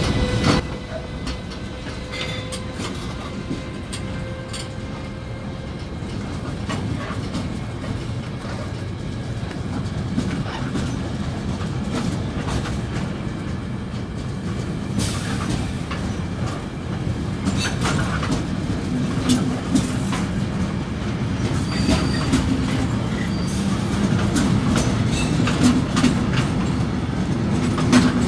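Container freight train rolling past on its flat wagons: a steady low rumble of steel wheels on the rails, with scattered clicks and clacks as the wheels pass over the track, growing slowly louder.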